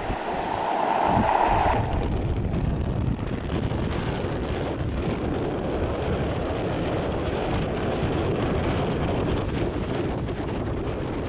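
Wind buffeting the microphone: a steady, gusty low rumble. A brighter hiss sits over it for the first two seconds.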